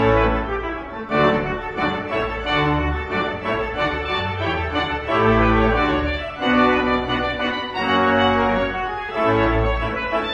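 Organ music: sustained chords with deep bass notes, the chords changing about once a second.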